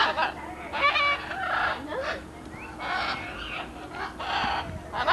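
Parrots squawking: about six loud, harsh calls of roughly half a second each, one after another.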